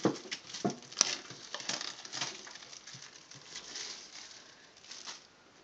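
Plastic shrink-wrap being torn and peeled off a metal collector's tin: quick crinkling and rustling, with two sharp snaps in the first second or so, dying away near the end.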